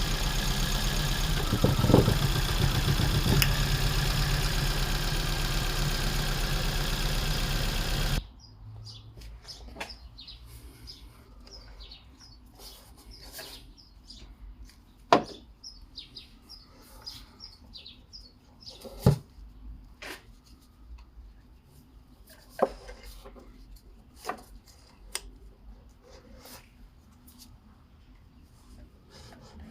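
Car engine idling steadily, then cut off suddenly about eight seconds in as it is switched off. What follows is quiet, with scattered sharp clicks and faint high chirps.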